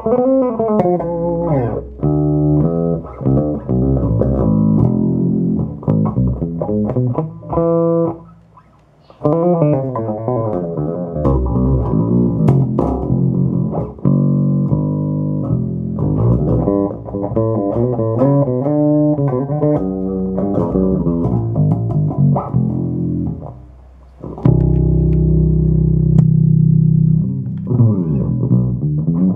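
Electric bass played through a Phil Jones Bass Briefcase combo amplifier: a run of plucked notes with slides between them. It breaks off briefly about eight seconds in and again about 24 seconds in, followed by a few longer held notes.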